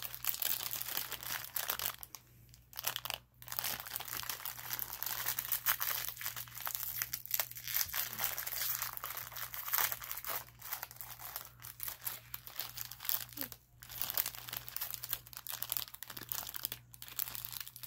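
Shiny plastic snack wrapper crinkling and tearing as it is opened and peeled back. The rustling runs almost continuously, with a brief pause about two seconds in.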